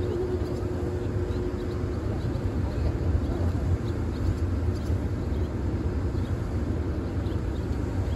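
JR Freight EH200 "Blue Thunder" electric locomotive's cooling blowers running steadily after start-up: a continuous whooshing rumble, with a faint hum that fades out about two seconds in.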